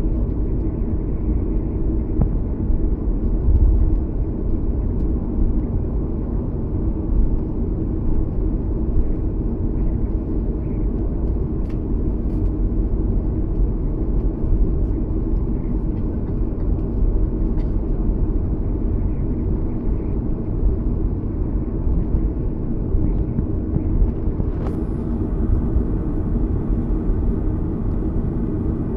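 Boeing 737-300 cabin noise while taxiing: the CFM56 engines at idle and the airframe rolling over the apron make a steady low rumble with a faint hum in it. A thin high whine comes in about three-quarters of the way through.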